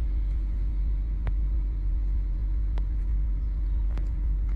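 Steady low rumble of a car idling, heard from inside its cabin, with a faint steady hum and three faint clicks.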